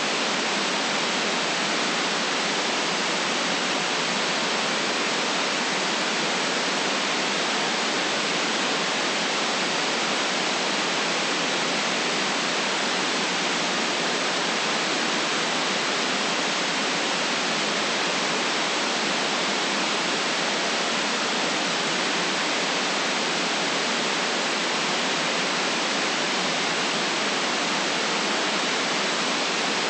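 Steady white noise: an even, unchanging hiss with no deep bass and the very top cut off.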